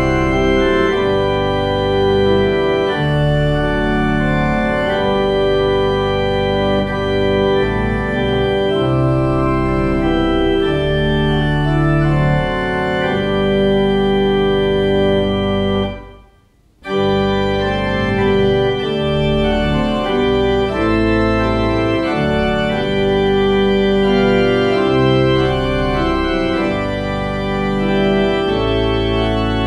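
Organ playing a hymn tune in sustained chords that change every second or so. The music cuts out suddenly for under a second about halfway through, then carries on.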